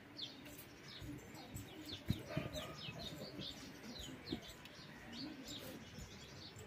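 Birds chirping faintly in the background, short high chirps several times a second. A soft knock about two seconds in.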